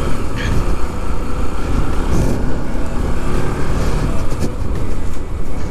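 Bajaj Pulsar NS200's single-cylinder engine running as the motorcycle is ridden along the road, mixed with a steady rush of wind on the microphone.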